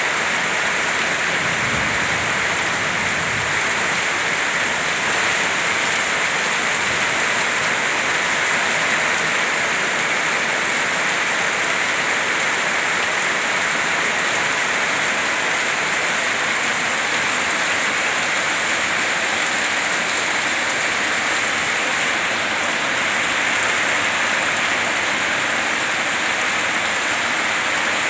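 Heavy rain falling steadily on a muddy yard and foliage, with water streaming off a roof edge.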